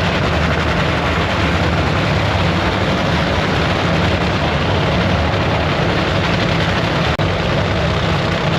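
Nitro drag racing engine running at full volume, a loud, steady blast of noise with a brief break about seven seconds in.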